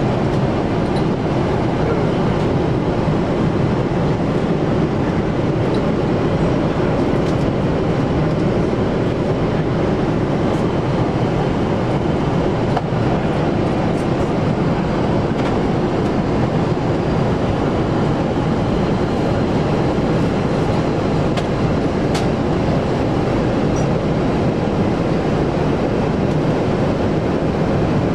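Steady cabin noise of a Boeing 747-8 in flight: an even, unbroken rumble and hiss from the airflow and engines, with a few faint clicks.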